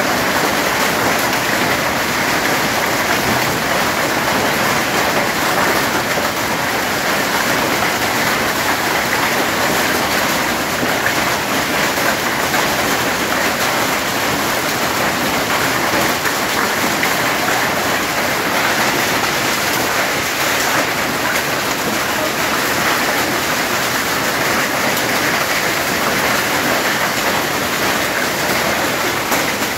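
Hailstorm: heavy rain mixed with hailstones pelting down onto corrugated tin sheeting and the ground, a steady, dense rush of hits.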